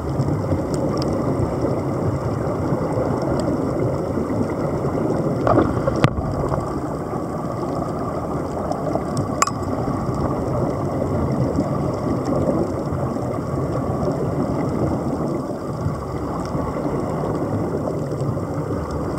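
Underwater noise picked up by a submerged camera: a steady, dense rumble with air bubbling, and two sharp clicks about six and nine and a half seconds in.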